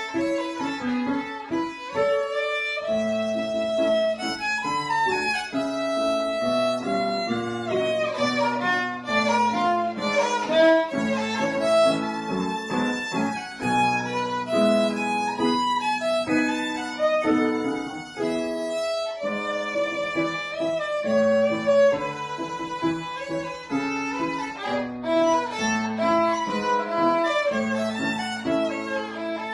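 Violin playing a classical recital piece, a busy melody of quickly changing notes over lower held notes.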